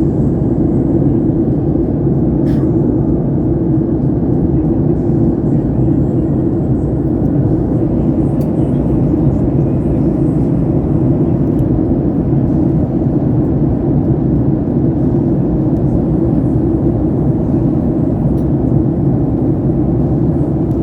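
Steady cabin drone of a Boeing 737 MAX 8 in flight, the CFM LEAP-1B engines and rushing airflow heard inside the cabin as an even low rumble.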